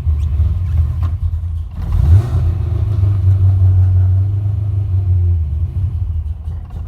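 Freshly built LS2 6.0-litre V8 running just after its first start, unsteady, dipping and picking up again with a brief rise in revs about two seconds in. It is untuned and struggling to hold an idle.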